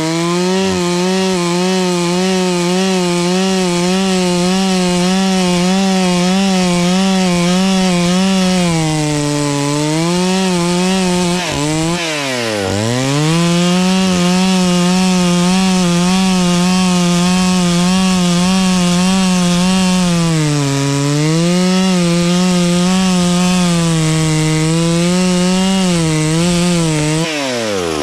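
Two-stroke chainsaw running at high revs through a tree, its pitch sagging slightly twice as the cut loads it. Twice, near the middle and near the end, the throttle is let off and the engine note drops sharply, then climbs straight back to full revs.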